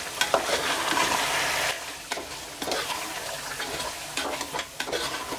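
Chicken and spice masala sizzling in hot oil on high flame while a metal spatula stirs and scrapes it around the pot. The sizzle is loudest for about the first two seconds, then settles, with scrapes and clicks of the spatula throughout.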